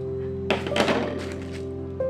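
A wooden rubber stamp thunks down about half a second in, followed by brief tapping and rustling, over soft acoustic background music.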